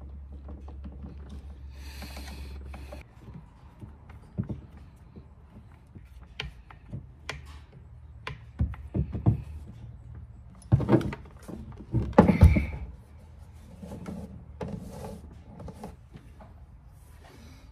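Handling noise from a Stihl chainsaw being worked on with a screwdriver on a truck bed: scattered clicks, knocks and rubbing as the saw is turned up on end and set back down, the loudest knocks about eleven and twelve and a half seconds in. A low hum stops about three seconds in.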